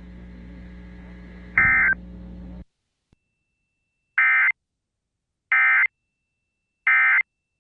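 Emergency Alert System end-of-message data bursts: three short, identical bursts of warbling digital tone about 1.3 seconds apart, which mark the end of the weather alert. They are preceded by faint radio hiss and hum with one similar short burst, and the hiss cuts off suddenly about two and a half seconds in.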